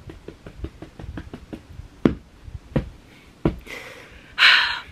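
Quick light tapping, about four or five taps a second, that fades out after a second or so. Then come three sharper clicks about two-thirds of a second apart and a short breathy exhale near the end.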